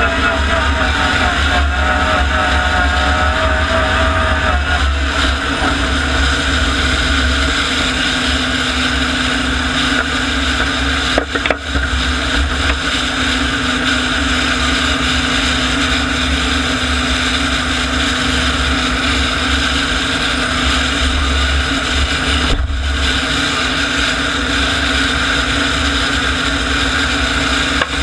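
Klimov TV3-117 helicopter turboshaft engine in a modified tractor puller, running steadily at idle with the puller standing still: a steady turbine whine over a loud hiss. A wavering whine in the first few seconds settles into a steady tone.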